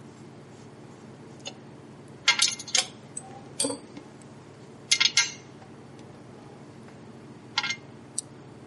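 Metal parts and a screwdriver clinking and clicking against a chart recorder's metal case, in a few short clusters: about two seconds in, around five seconds, and near the end. A steady low hum runs underneath.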